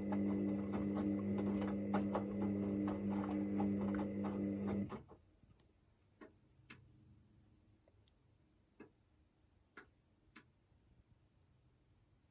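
Hoover VisionDynamic washing machine running: a steady motor hum with rapid clicking, which cuts off suddenly about five seconds in, leaving a few scattered clicks.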